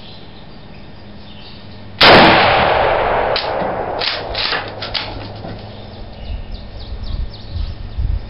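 A single rifle shot from a Mosin-Nagant M44 carbine (7.62×54R) about two seconds in, very loud and sudden. Its blast echoes back in a few sharp cracks and rolls away over several seconds.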